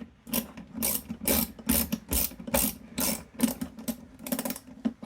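Ratchet socket wrench being worked back and forth, its pawl clicking in short strokes about two or three times a second, as a spark plug is undone.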